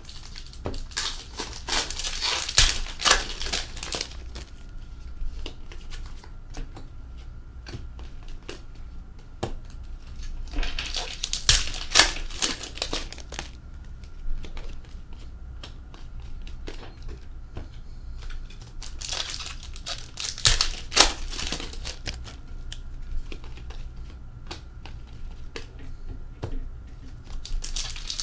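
Hockey card pack wrappers being torn open and crinkled, in bursts about every eight or nine seconds, with light clicks of cards being handled between.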